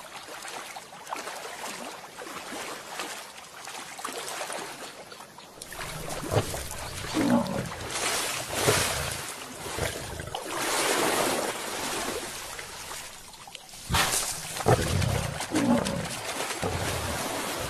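Growls and grunts of lions and African buffalo squaring off, several short calls sliding down in pitch, over splashing and rushing water.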